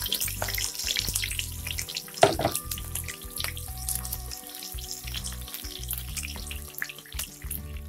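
Eggplant pieces sizzling and spitting in hot vegetable oil in a frying pan as they are stirred with a wooden spatula, with one sharp knock a little over two seconds in.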